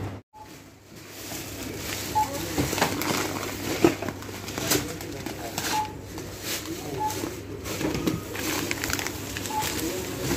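Supermarket checkout barcode scanner giving about five short single beeps at irregular intervals, over the clatter of goods and a metal shopping trolley being handled at the counter, with a sharp knock about 4 s in.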